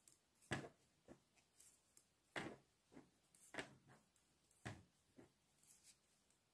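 Faint, irregular clicks of knitting needles tapping together as a purl row of stockinette is worked, a click or two every second or so.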